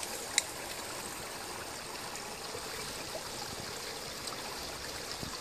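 Steady hiss of running water, like a small stream or trickle, with one sharp click about half a second in.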